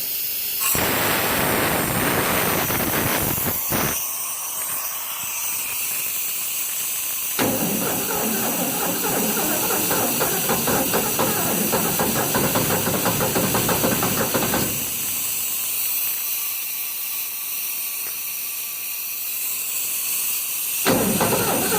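Steady hiss of air from the Ford 302 V8–driven air compressor. The engine runs unevenly for about seven seconds in the middle, then cuts out abruptly; the owner says it doesn't like running once the compressor builds up pressure.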